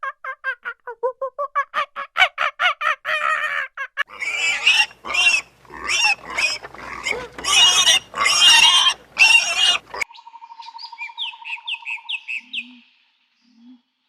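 A run of animal calls: quick repeated pitched calls for the first few seconds, then about six seconds of loud, harsh squeals or screeches in long strokes, then fainter high chirps over a steady buzzing tone.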